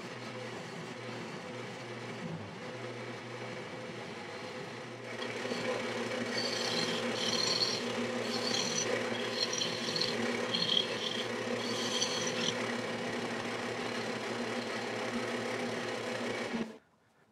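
Wood lathe motor running steadily while a turning tool cuts into the spinning walnut blank, hollowing out the mortar. From about five seconds in the cutting gets louder, with a stretch of repeated higher scraping, and the sound cuts off suddenly near the end.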